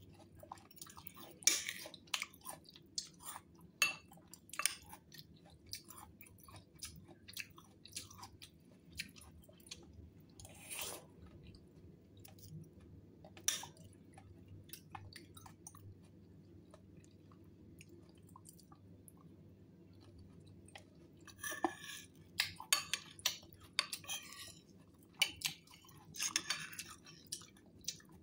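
Close-up chewing and wet mouth sounds of someone eating a creamy fruit salad of cherries, kiwi and diced fruit: scattered short moist clicks, busier in stretches near the end.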